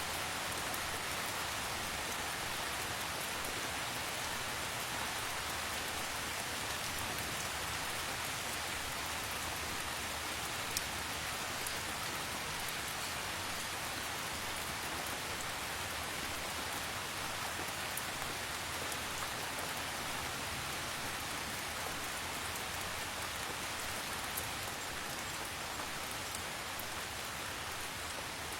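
Steady rain falling, an even hiss of many drops with a few sharper single drop ticks, the clearest about eleven seconds in.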